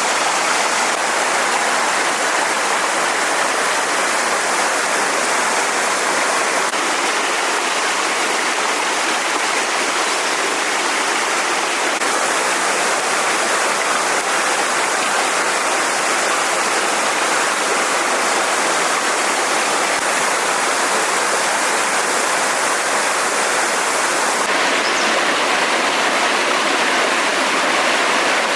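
Stream water rushing and splashing steadily, a loud, even wash of water noise whose tone shifts slightly a few times.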